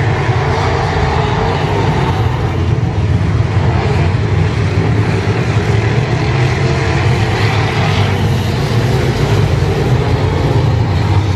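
A field of IMCA Modified dirt-track race cars' V8 engines running at racing speed around the oval, a loud, steady blended engine noise.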